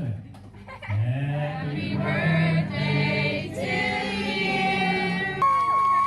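Voices singing in held notes, like a choir, starting about a second in. About five and a half seconds in, the sound changes abruptly to a high held tone with gliding notes.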